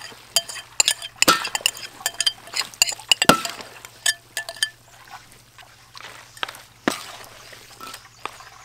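Metal utensils clinking and tapping against metal and ceramic dishes: a run of light clinks, busiest in the first few seconds, with two sharper knocks about a second and three seconds in.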